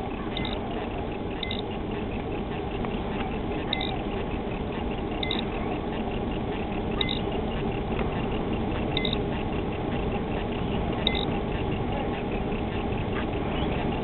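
Ranger 481V boat's motor running with a steady rumble and wash of water. Short high electronic beeps sound every one to two seconds.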